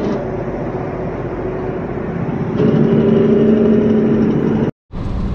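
Semi truck engine running steadily, getting louder about halfway through, then cutting off abruptly near the end.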